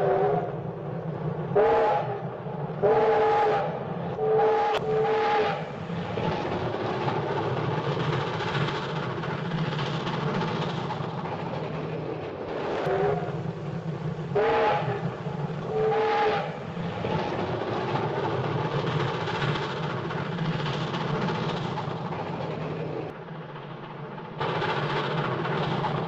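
Steam train whistle blowing a chord in a series of short toots over the steady running noise of the train. The toots come in the first sixteen seconds, then only the train running continues.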